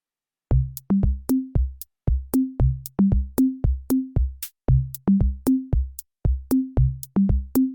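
Electronic music: a drum-machine beat of deep, pitched drum hits with sharp clicks on top, starting about half a second in.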